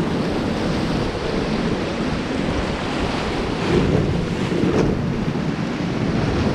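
Rushing river rapids around an inflatable raft, a steady whitewater noise, with wind buffeting the microphone.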